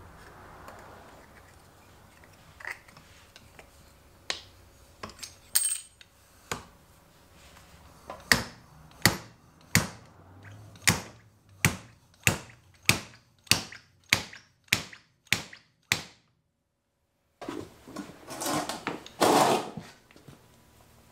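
A split Delrin seal driver slid along the fork tube and knocked against the fork seal about a dozen times in a steady run, roughly one and a half sharp knocks a second, driving the seal into the outer tube of a Kayaba inverted fork. Scattered light clicks come before the knocks, and rustling handling noise follows near the end.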